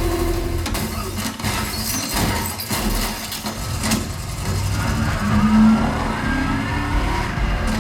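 Action-movie soundtrack played over home-theater speakers and recorded in the room: a car engine revving, with sharp impacts and deep rumble.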